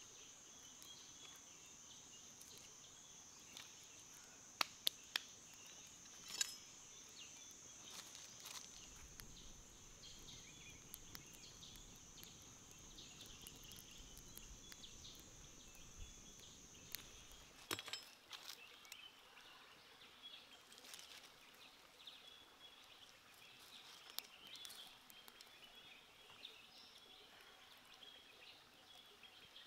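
Faint forest ambience: a steady high-pitched insect drone that stops abruptly about eighteen seconds in, after which faint high chirping is heard. A few sharp cracks come about four to six seconds in.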